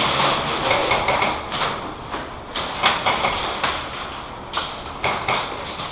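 A series of irregular sharp knocks and clicks over a rustling noise.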